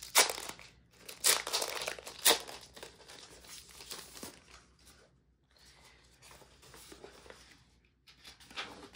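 Clear plastic wrapping crinkling as a folded paper calendar poster is slid out of it, with three sharp crackles in the first few seconds, then softer rustling of the paper as it is unfolded and flattened.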